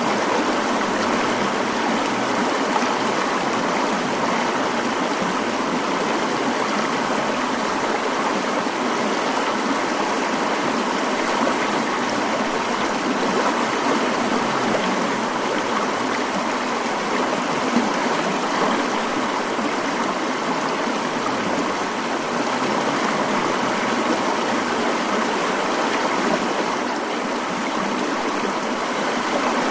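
Mountain stream water rushing and splashing over rocks, a steady, unbroken rush.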